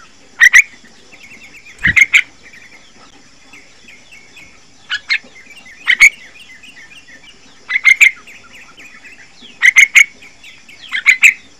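Young yellow-vented bulbul (trucukan) calling: clusters of two to four short, sharp, loud notes every second or two, with soft chattering between them.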